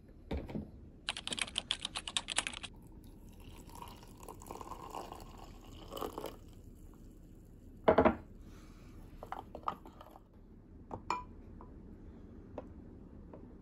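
Hot water poured from a glass jug into a glass mug of instant sakura latte powder, after a brief run of rapid small clicks. About eight seconds in there is one loud knock, followed by light clicks of a wooden spoon against the glass mug as the drink is stirred.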